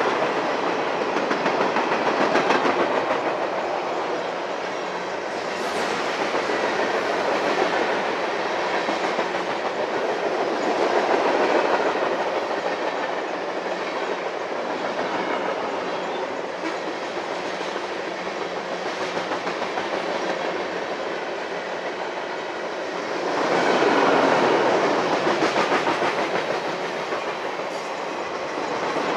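A train rolling past, its cars' wheels running steadily over the rails, getting louder for a few seconds near the end.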